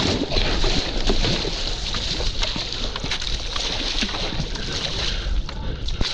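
Water splashing and sloshing around a stand-up paddleboard and its paddle as it is paddled through choppy water, with wind on the microphone. The sound is a steady rush with many small irregular splashes.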